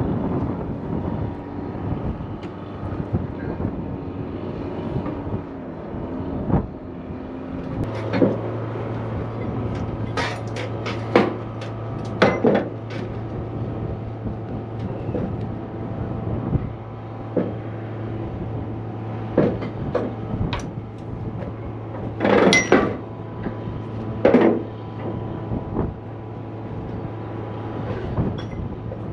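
Wind buffeting the microphone and a steady engine hum, with a series of sharp metallic clanks and knocks from straps and winches being worked to tie down a flatbed load. The two loudest clanks come just past the middle.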